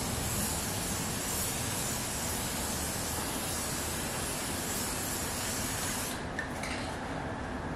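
Aerosol pressure-pack can of Sika underbody coating spraying in a steady hiss, which stops about six seconds in.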